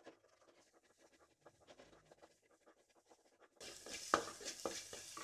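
A spatula scraping and breaking up scrambled egg in a metal kadai, in light, quick scratching strokes. About three and a half seconds in it turns louder, with a steady frying sizzle under sharper scraping strokes.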